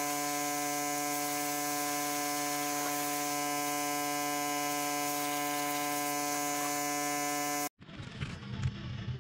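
Pressure washer running with a steady, even hum as its jet sprays an engine oil pan. Near the end the hum cuts off suddenly, leaving a low, uneven rumble.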